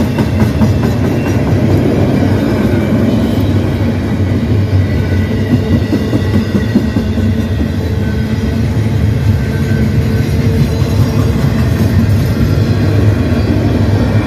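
Long CN freight train rolling past, a loud steady rumble of wheels on rails.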